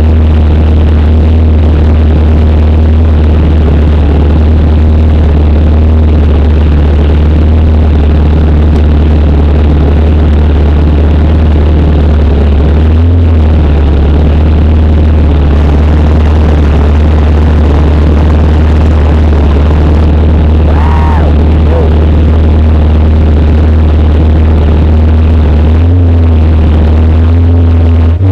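Motorcycle streamliner's engine idling at a steady, loud pitch, heard from inside its cockpit, with two brief small rises in revs.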